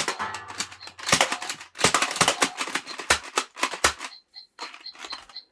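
Nerf Zombie Strike foam-dart blaster being fired, a run of sharp plastic clacks about every half second for around four seconds.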